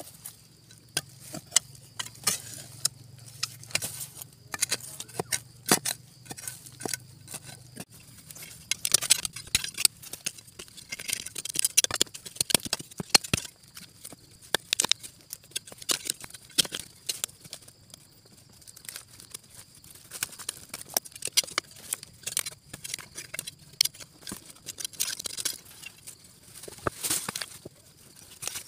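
Close-up digging in dry soil and leaf litter around the roots of a tree stump, the stump being dug out for bonsai material: irregular scraping, crackling and small knocks. It is busiest from about eight to fourteen seconds in and again near the end.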